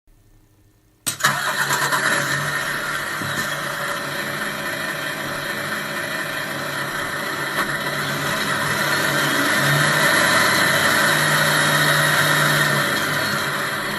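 RC model sound module playing a simulated DAF XF 480 diesel truck engine starting: after a second of faint sound it catches suddenly and settles into a steady idle. The engine note builds slowly from about eight seconds in and eases back near the end.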